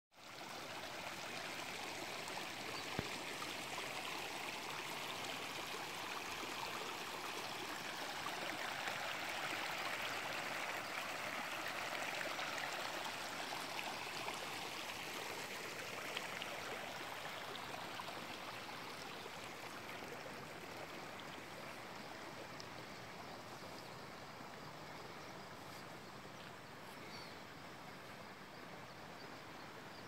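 A shallow stream of water running and trickling over stones, a steady wash that eases off over the last third. A brief click about three seconds in.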